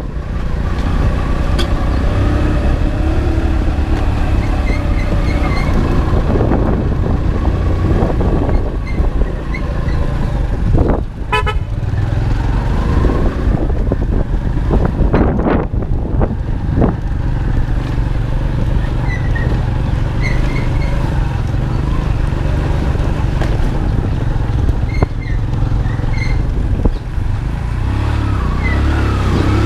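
Motorcycle engine running steadily on the move in traffic, with wind buffeting the microphone. Short vehicle horn toots sound now and then.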